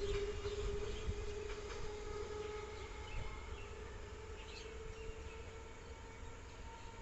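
BEML-built train moving away: its low rumble and a steady hum fade out gradually, with faint bird chirps.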